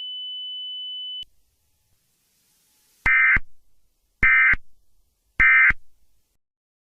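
A steady high-pitched tone cuts off about a second in. Then come three short, identical bursts of Emergency Alert System digital data tones, about a second apart: the end-of-message signal that closes an alert.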